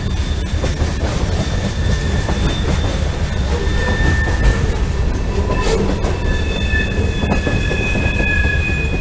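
Freight cars of a CSX mixed freight train rolling past with a steady low rumble of wheels on rail. Thin high-pitched metal squeals come and go, stronger in the second half.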